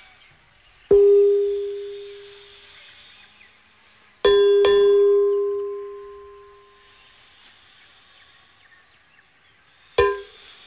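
A bell-like ding, struck four times on the same pitch: once about a second in, ringing out for about two seconds; twice in quick succession about four seconds in, ringing out for several seconds; and once more, cut short, near the end.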